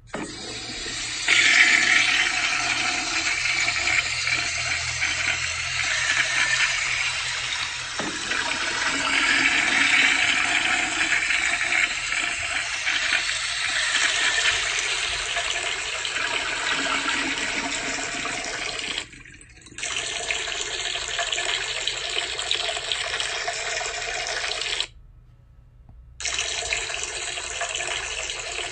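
Steady rush of running water, cut off twice for a moment about two-thirds of the way through and again near the end.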